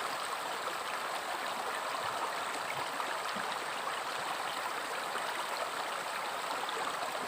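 River water flowing and gurgling over stones in a steady rush.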